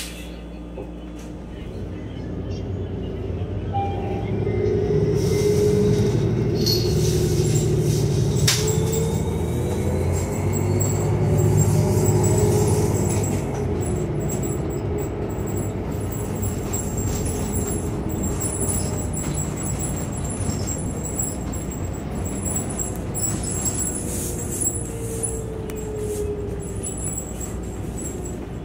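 New Flyer Xcelsior XDE40 diesel-electric hybrid bus pulling away and driving, heard from inside the cabin: the drive noise builds about a second in with a rising whine, holds steady, and a falling whine comes near the end. A sharp click sounds about a third of the way through.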